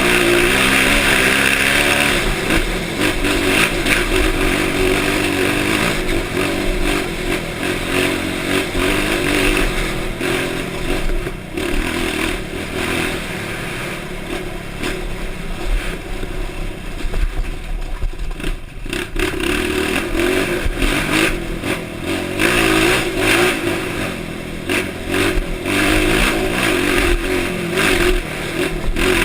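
Honda CRF motorcycle engine running, its pitch rising and falling as the throttle is worked.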